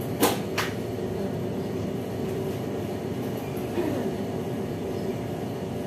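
Two quick crinkles of a plastic bag being handled near the start, over a steady low background hum.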